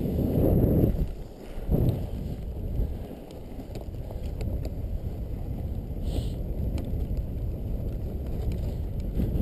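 Wind rumbling on the microphone of a moving dog sled, with the low rush of the sled running over snow. The rumble drops away briefly a little after a second in.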